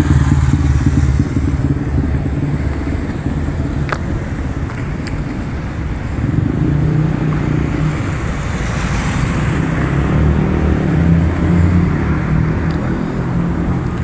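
Street traffic: cars and motorcycles running by in a steady low rumble that eases off for a few seconds and swells again about halfway through.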